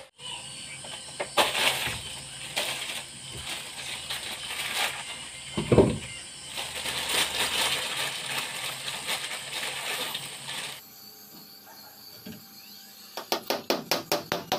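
Hammer nailing a ceiling panel in place: a quick, even run of sharp taps, about five a second, near the end. Before that, several seconds of irregular knocking and handling clatter with one loud low thump.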